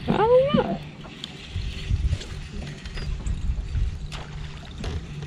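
Wind on the microphone and water slapping against the bass boat's hull, with a few faint scattered clicks. A person's voice gives a short rising-and-falling exclamation at the very start.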